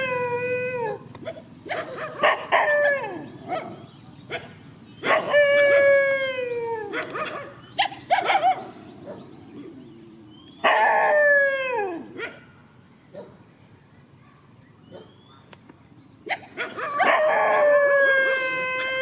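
Dogs howling and yelping in repeated calls of a second or two, each falling in pitch, with short barks between the calls.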